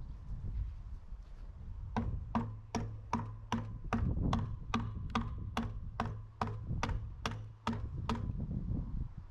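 A regular series of sharp mechanical clicks, each with a short ring, about two and a half a second, starting about two seconds in and stopping near the end, over a low steady hum.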